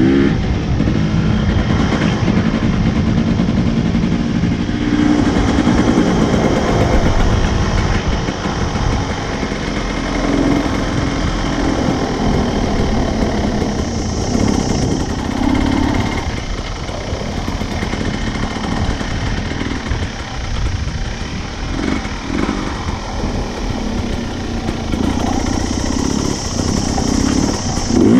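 Dirt bike engine running as the bike is ridden along a dirt track, its note rising and falling repeatedly with the throttle.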